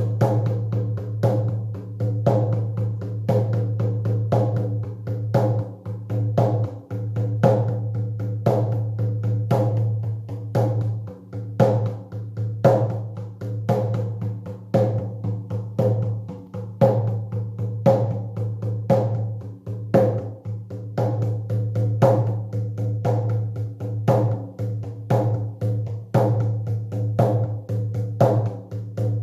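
Drum beaten in a steady, even, repetitive rhythm for a shamanic journey, each stroke followed by a deep ringing boom that carries between strokes.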